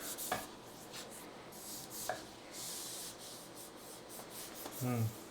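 Soft scraping and rubbing of hands handling a MacBook Pro's aluminium case on a bench, with a few small clicks. A short hum of voice comes near the end.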